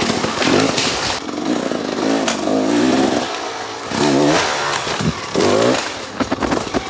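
Off-road enduro motorcycle engine revving hard in repeated bursts, its pitch rising and falling, with knocks and clatter as the bike climbs rough ground.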